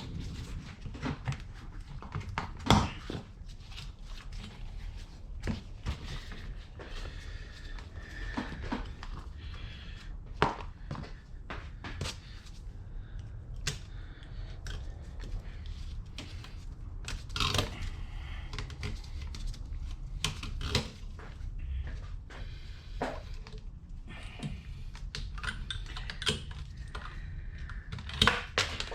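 Irregular clicks, knocks and light clatter of hand tools and metal parts being handled during a steering rack teardown, with a few sharper knocks spread through.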